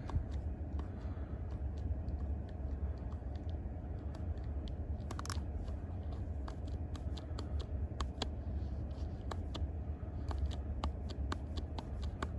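Buttons of a handheld OBD scan tool clicking irregularly as its menus are worked, over a steady low hum.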